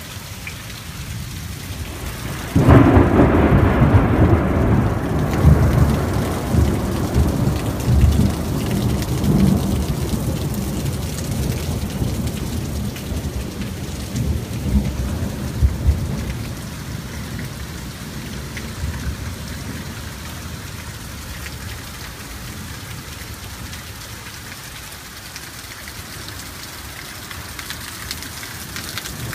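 Steady rain falling, with a sudden clap of thunder about two and a half seconds in that rumbles on for more than ten seconds before fading back into the rain.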